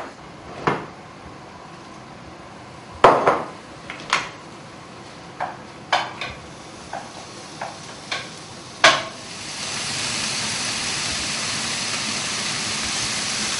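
Chicken pieces frying in a frying pan on a gas hob: a spatula knocks and scrapes against the pan about a dozen times at irregular intervals, then from about ten seconds in a steady sizzle takes over.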